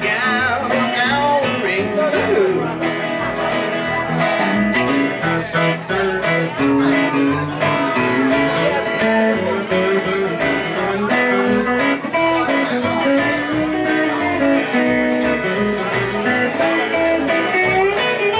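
Live country band playing an instrumental break with no singing: guitars playing over steadily plucked upright bass notes.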